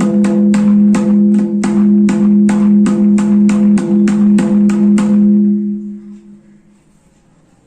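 Santhali mridanga hand drum struck in a fast, even stream of strokes, about four a second, the head ringing at a clear steady pitch, as in a check that it sounds even. The strokes stop about five seconds in and the ring dies away.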